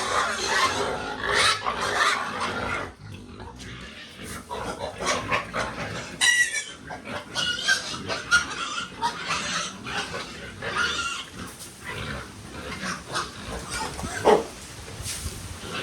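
Pigs calling at feeding time: a dense run of loud calls for about the first three seconds, then scattered calls, with one short, loud call near the end.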